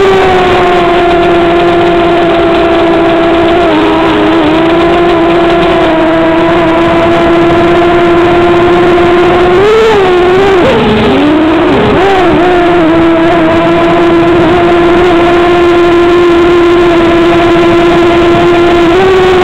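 Electric motors and propellers of a small quadcopter drone, heard through its onboard camera: a loud, steady whine. About ten seconds in, the pitch swings down and back up several times as the drone manoeuvres, then settles again.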